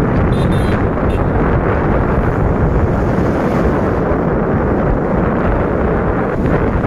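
Heavy wind rushing over the microphone of a motorcycle in motion: a loud, steady roar of wind and road noise.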